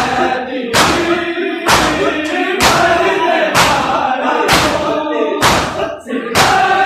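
A crowd of men beating their chests in unison in Muharram matam: a loud collective slap about once a second, with voices chanting a lament between the strikes.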